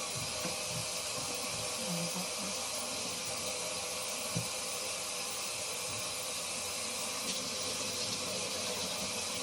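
Steady hiss of tap water running into a sink, with a few faint soft knocks.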